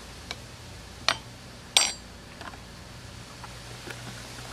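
A metal spoon clinking and tapping while minced garlic is scooped from its jar into the marinade: a few sharp clinks, the loudest just under two seconds in, then lighter taps.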